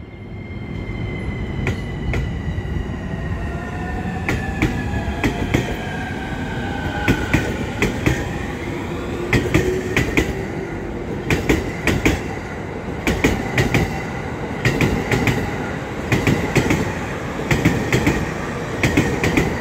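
E231/E233-series electric commuter train pulling away from a station platform: its inverter-driven traction motors whine in gliding tones as it accelerates. The wheels click over the rail joints, the beats coming faster as the train gathers speed.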